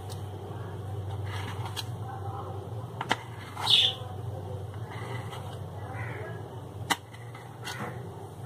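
A steady low hum with two sharp knocks about three and seven seconds in, and a short bird call between them, near the middle.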